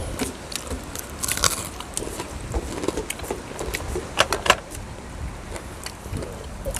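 Close-up eating sounds: chewing and crunching on crispy fried food, with a few sharp clicks about a second and a half in and again around four seconds in.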